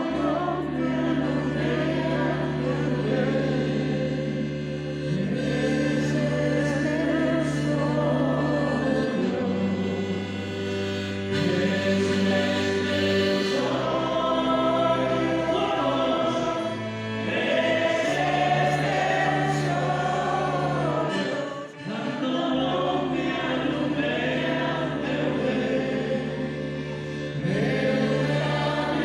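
Music with several voices singing together, choir-like, over long held low notes that change every few seconds.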